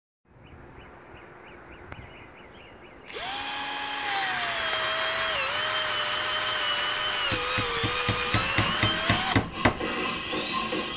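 Cordless drill driving screws into a pine board: after a few seconds of faint repeating high chirps, the drill motor starts with a whine that sags and wavers in pitch under load. A rapid run of clicks follows, about five a second, before the drill stops. It starts again near the end.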